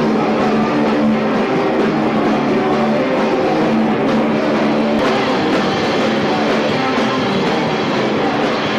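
Loud rock music with guitar and drums, a band playing live.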